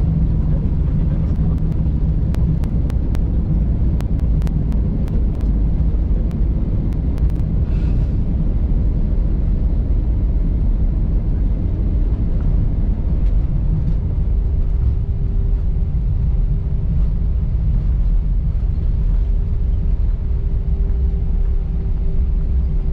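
Steady low rumble inside the cabin of an Airbus A320-family airliner as it taxis, its jet engines running and its wheels rolling. A few light clicks fall in the first several seconds, and a steady hum comes in about twelve seconds in.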